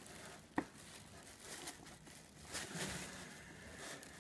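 Faint rustling of clear plastic wrap as the packed engine is handled in its box, with one sharp click about half a second in.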